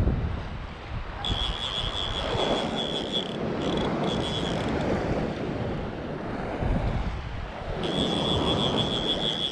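Wind buffeting the microphone and shallow water sloshing, with a high, steady whine from a spinning fishing reel that comes and goes in stretches while a hooked fish is played on a bent rod.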